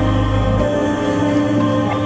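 Background music of held, sustained chords over a deep bass drone; the bass drops out about a third of the way in.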